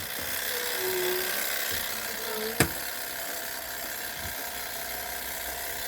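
Wind-up clockwork motor of a Gamewell fire alarm master box whirring steadily as the box is reset, with one sharp click about two and a half seconds in.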